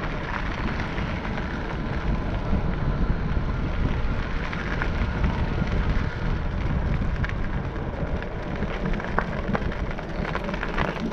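Wind buffeting the microphone of a moving camera, a steady low rumbling noise with scattered small clicks and ticks from the road.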